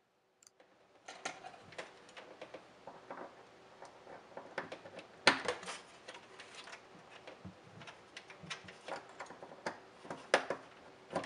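Small plastic clicks and taps from wiring connectors being handled against the plastic freezer liner, with two sharper clicks, one about five seconds in and one near the end.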